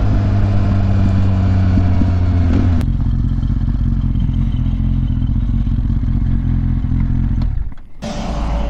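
Kawasaki Z800 inline-four engine running while riding; about three seconds in the engine note drops as the throttle closes and it runs on lower, with a brief dip and a change in the sound near the end.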